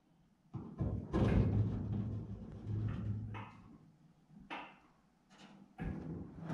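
Automotive lift lowering a car body: about three seconds of mechanical running noise with a low hum, then a couple of separate clunks.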